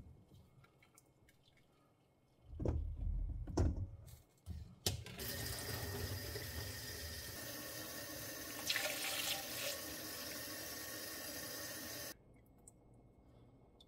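A few knocks, then a kitchen tap runs water steadily for about seven seconds and shuts off abruptly.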